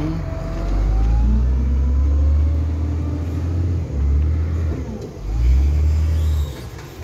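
Wind buffeting the microphone: a heavy, gusty low rumble that swells and drops, dipping briefly about four seconds in and again just after five.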